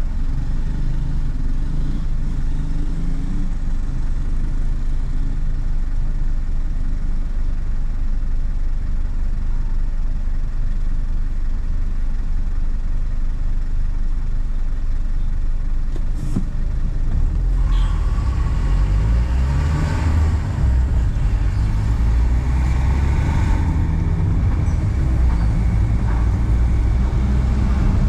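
A 2011 Renault car driving in city traffic: a steady engine and road rumble that grows louder and busier about two-thirds of the way in, with one sharp click just before that.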